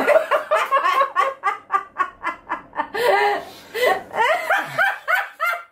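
A man and a woman laughing hard together, in quick pitched bursts about four or five times a second.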